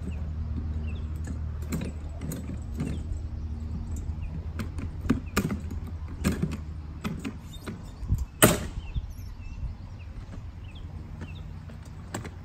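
Plastic-bed garden dump cart being handled and tipped: a run of knocks and clatters, with one loud bang about two-thirds of the way through.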